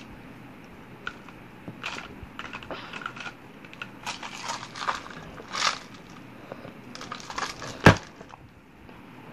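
Close-miked eating sounds from a person eating lasagna: wet chewing and mouth noises with scattered small clicks and crinkles. One sharp click about eight seconds in is the loudest sound.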